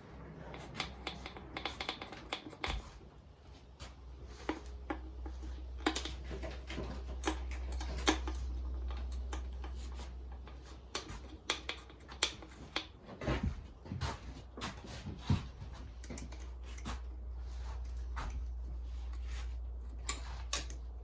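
Irregular metallic clicks and taps of hand tools and bolts being worked while the valve cover goes back on the engine, over a steady low hum.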